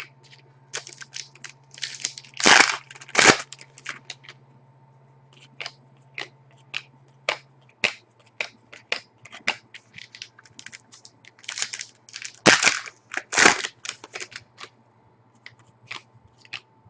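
Trading cards and packs being handled, giving many quick sharp clicks and snaps. Louder rustling comes in two clusters, about 2 seconds in and about 12 seconds in. A faint steady electrical hum lies underneath.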